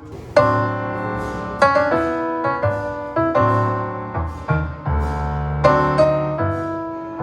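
Background piano music: chords and low bass notes struck one after another, each ringing and fading.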